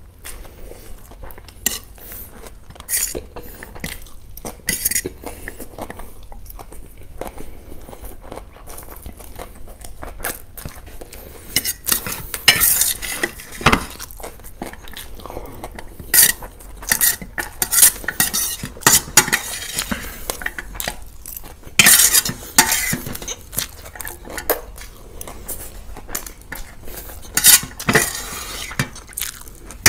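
Cutlery clinking and scraping against plates and bowls of food, in irregular sharp clicks, with chewing and crunching in between.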